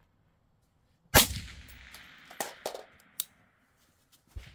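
A single shot from an AR-15 rifle, sharp and loud, with a decaying echo from the covered firing line, followed by a few lighter clinks and knocks.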